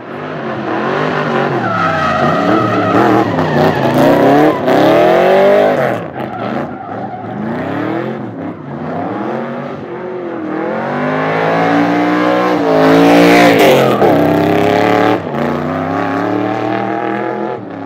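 Tuned turbocharged Nissan 200SX engine revving hard, its pitch rising and falling again and again, with tyres skidding and squealing as in drifting or a burnout.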